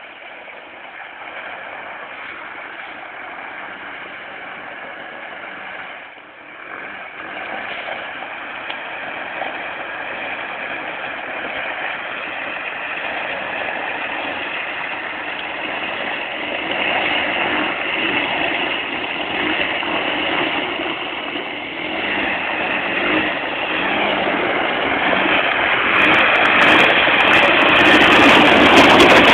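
ATV engine running, growing steadily louder, with a brief drop about six seconds in.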